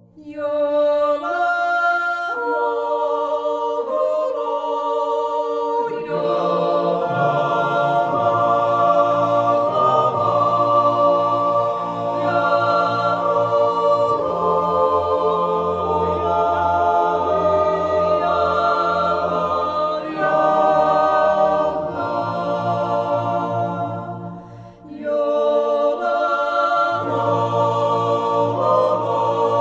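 Music: a choir singing slow, sustained a cappella chords, with voices entering in layers and a deeper part joining after a few seconds. It dips briefly near the end and then swells again.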